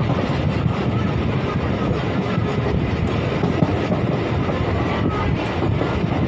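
Passenger train running along the track, heard from inside the coach: a steady low rumble of wheels on rails with a few faint clicks.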